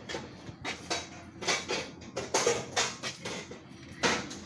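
A cardboard shipping box being handled: about half a dozen irregular scrapes and knocks, the loudest about four seconds in.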